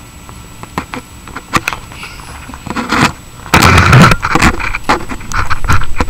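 Cats pouncing and scrabbling on a wooden floor: a few light taps, then a loud scuffle about three and a half seconds in, followed by more thumps and scrapes.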